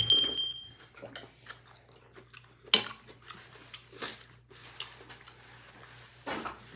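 People eating at a table: soft chewing and mouth sounds with a few light clicks of spoons on bowls and plates. A two-tone notification chime fades out in the first second.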